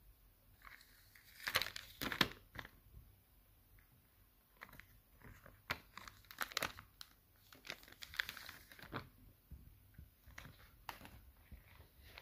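Plastic chocolate-bar wrapper and its foil lining crinkling and tearing as the bar is opened, a run of sharp crackles that is loudest near the start, then scattered crinkles.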